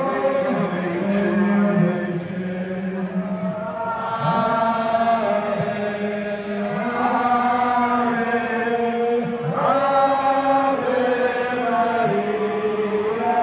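A crowd of pilgrims singing a slow, chant-like hymn together in one melodic line, each note held for a second or two.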